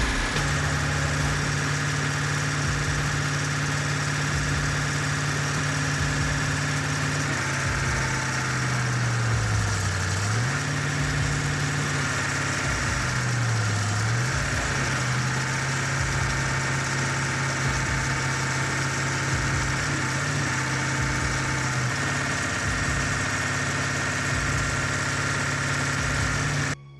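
Stump removal machine's engine running steadily, its pitch sagging twice under load and recovering. The sound cuts off suddenly near the end.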